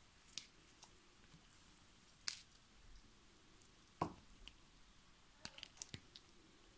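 Faint, scattered clicks and light taps from a steel watch case being handled with gloved fingers on a work mat: a sharp click about two seconds in, a duller knock at about four seconds, and a quick run of small clicks near the end.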